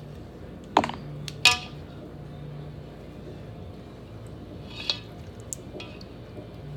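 Sharp kitchenware clinks with a short ring, two about a second in and a fainter one near the end, as a glass soy sauce bottle and plastic measuring spoons are handled over a stainless steel mixing bowl. A low steady hum runs underneath.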